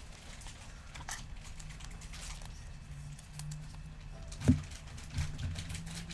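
Trading cards being handled on a table: faint ticks and soft sliding noises, with one sharper tap about four and a half seconds in, over a low steady hum.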